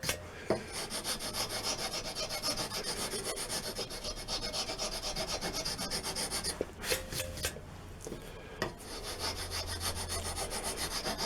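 Round file rasping back and forth across a wooden block in fast, even strokes, about four a second, shaping its rounded edge. The strokes stop for about two seconds in the middle, with a few knocks, then start again.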